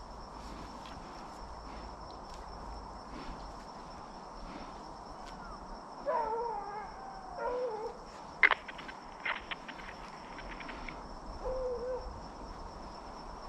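Hunting hounds baying in the distance as they run a jumped deer: a few drawn-out, wavering howls about six seconds in and again near the end. Under them runs a steady, high insect drone, and a sharp click about eight and a half seconds in is followed by a few fainter ticks.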